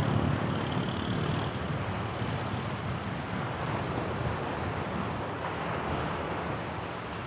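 Surf washing onto a sandy beach, with wind buffeting the microphone; a steady rushing noise throughout.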